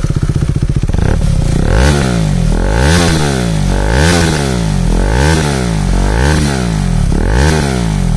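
KTM Duke 390's single-cylinder engine running through an Akrapovic slip-on muffler held on by hand. Just after starting it idles for about a second, then it is blipped about once a second, each rev rising and falling quickly, with a deep bassy note.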